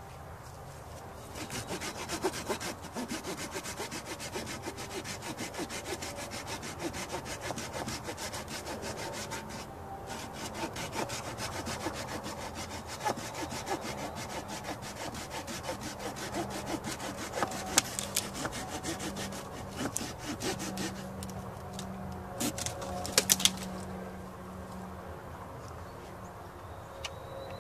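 Hand saw cutting through wood in quick, steady strokes, with a short pause about ten seconds in, stopping a few seconds before the end; a few sharp knocks follow shortly after.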